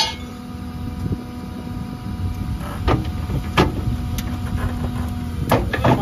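Excavator's diesel engine and hydraulics running steadily with a level hum, the bucket working in the trench, with several sharp knocks in the second half.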